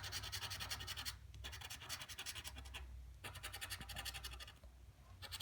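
Scratch-off lottery ticket being scratched, with rapid back-and-forth scraping strokes over the coating. They come in runs broken by brief pauses, about a second in, about three seconds in and near the end.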